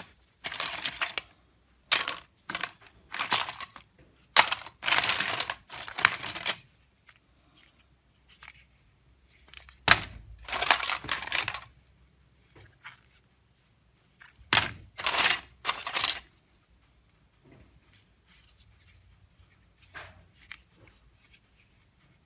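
Old mobile phones and loose circuit boards clattering and rattling against each other as a hand rummages through a heap of them, in bursts of one to two seconds, with fainter clicks near the end.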